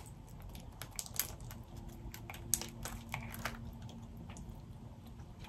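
Boiled crawfish shells being cracked and peeled apart by hand: scattered small clicks and crackles, with a few sharper cracks.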